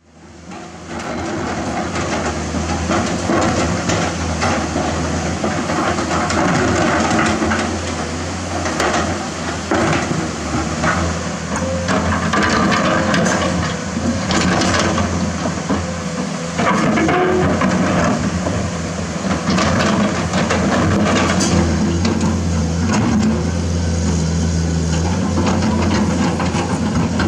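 Komatsu PC210-10 excavator's diesel engine running steadily under working load, fading in at the start, with scraping and knocks now and then as the bucket digs into rock and gravel.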